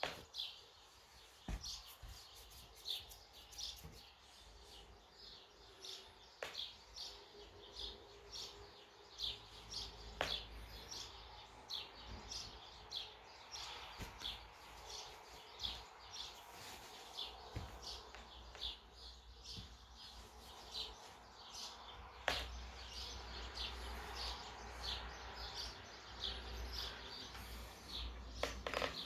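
Small birds chirping over and over, short high chirps about two a second, with a few sharp clicks among them.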